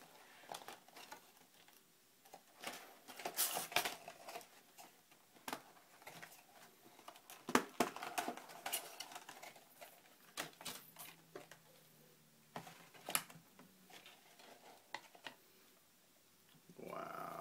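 Cardboard box and clear plastic packaging handled and pulled apart: scattered clicks, taps and crinkling rustles, busiest in two spells. A brief pitched whine sounds near the end.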